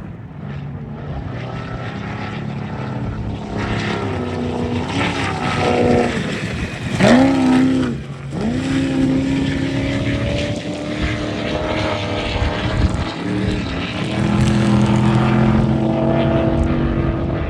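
Off-road race car engine revving hard, its pitch rising and falling with throttle. It builds to its loudest about seven seconds in, where the pitch jumps and then drops sharply, and runs on at high revs with another brief lift and pick-up around thirteen seconds in.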